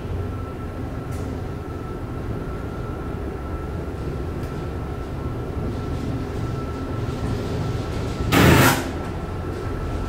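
Big, fast freight elevator with no inner car doors travelling in its shaft: a steady low rumble with a thin high whine throughout, and a brief loud rush of noise about eight seconds in.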